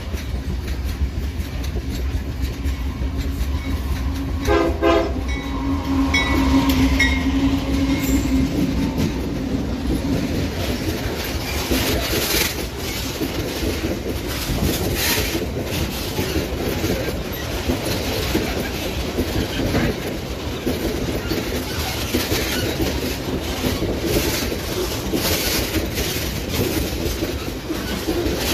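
Diesel locomotive horn sounding a short blast about four seconds in, then a longer one, over the low rumble of the approaching GE C44EMi locomotives. After that, a loaded coal train's gondola wagons roll past close by, their wheels clattering over the rail joints.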